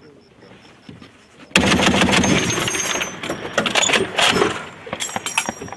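M2 .50-calibre heavy machine gun firing a burst that starts suddenly about a second and a half in and lasts about a second and a half, followed by several shorter separate bangs.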